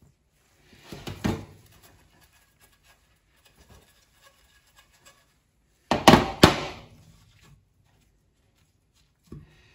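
A glass baking dish of seasoned flour shaken and knocked on a cooktop, the flour coating rubbing and sliding over a halloumi fry. Two short bouts of rattling and knocking, about five seconds apart.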